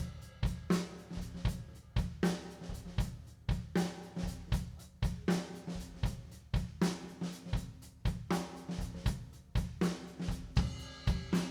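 Live rock band playing an instrumental passage: a drum kit keeps a steady beat, with a strong hit about every three quarters of a second, over bass and guitar.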